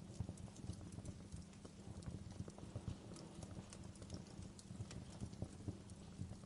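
Fireplace fire crackling: a steady low rumble of burning with frequent small irregular pops and snaps, a few of them sharper.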